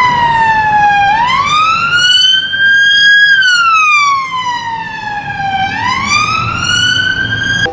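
Police car siren on its wail tone, the pitch gliding slowly down, up, down and up again in long sweeps of about two seconds each.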